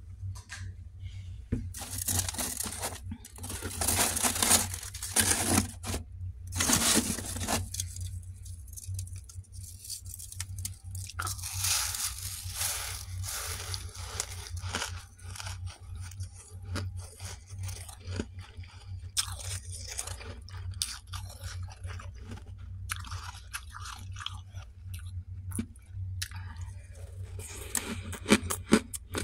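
Close-up crunching of freezer frost being chewed, in irregular crackly bursts, over a steady low hum.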